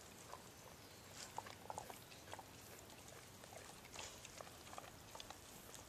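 Near silence: faint, scattered light ticks and rustles.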